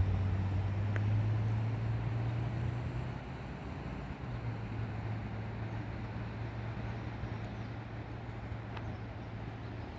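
Steady low hum of a vehicle engine, easing slightly about three seconds in.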